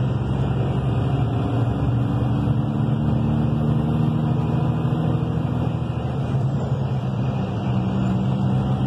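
Truck's diesel engine running steadily under load, heard from inside the cab, with road noise.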